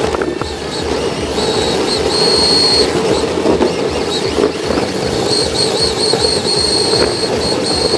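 RC drift car running, heard from a camera mounted on its body: a steady rumble of tyres on asphalt and wind on the microphone, with a high electric-motor whine that comes and goes and wavers with the throttle.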